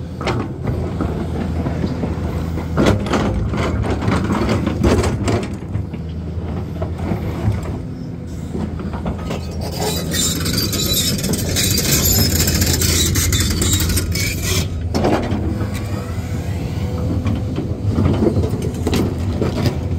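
Excavator diesel engine running steadily while grading, with scattered metallic knocks and a few seconds of hiss about halfway through.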